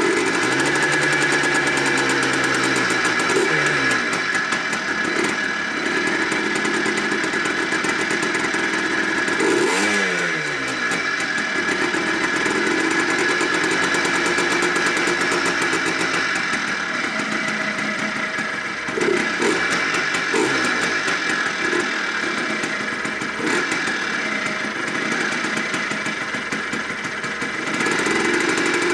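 Yamaha Blaster 200's single-cylinder two-stroke engine running after a rebuild, idling and blipped up and down on the throttle several times. It has a slightly bearing-like note from the freshly replaced bearings, which the owner expects to quiet down with a few minutes of runtime.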